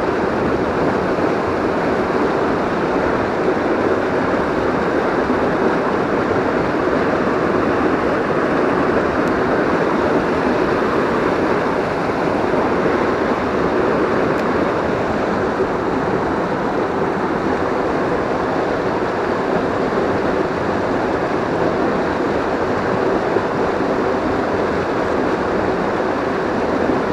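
Mountain river rapids: whitewater rushing steadily over boulders.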